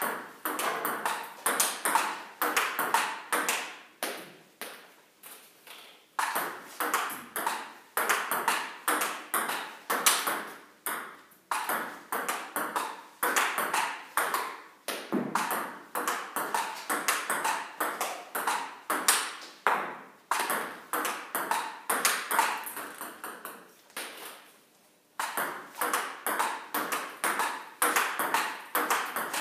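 Table tennis balls clicking off paddles and bouncing on the table in a fast, continuous backhand drill, a quick even stream of sharp pings. The hitting stops briefly about five seconds in and again near twenty-four seconds.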